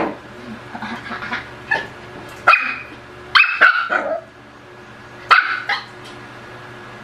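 Pomeranian puppy barking: about seven short, high-pitched barks in irregular clusters.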